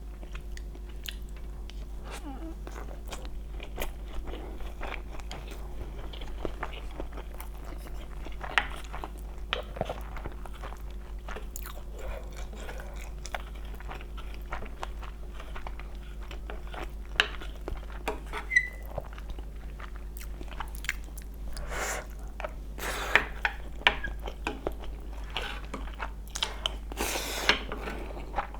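Close-miked eating: chewing and biting with many small crunchy clicks and wet mouth sounds, a few louder ones in the last third, over a steady low hum.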